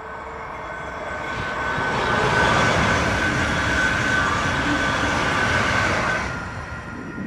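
High-speed passenger train passing at speed: the rushing noise builds over the first two seconds, holds for about four seconds with a steady high whine running through it, then drops away suddenly near the end.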